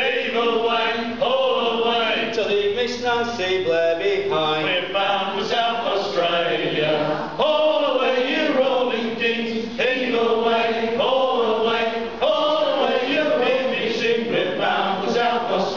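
A group of men singing a sea shanty together, voices holding long sung notes.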